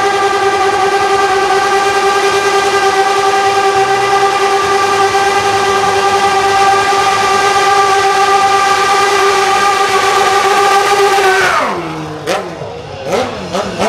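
Motorcycle engine held at steady high revs during a rear-tyre burnout, a loud, even note for about eleven seconds. Near the end the revs drop away, followed by two sharp cracks.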